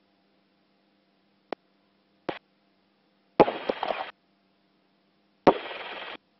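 A faint steady hum broken by a sharp click, then a short crackle, then two bursts of static-like hiss, each starting with a crack and cutting off abruptly.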